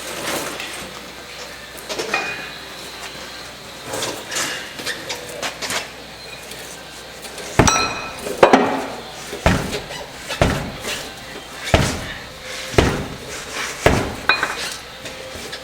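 Hammer blows on a bead axe, breaking the inner bead of a truck tire loose from its steel rim. Lighter knocks and clinks come first, then about seven heavy metallic strikes roughly a second apart in the second half; the first of these rings.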